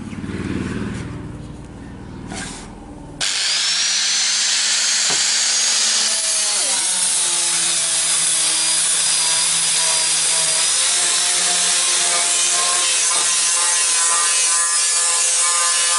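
Four-inch angle grinder with a sanding disc grinding the bevel of a steel knife blade: a loud, steady grinding hiss over the motor's whine. It starts abruptly about three seconds in, after a few seconds of low handling noise.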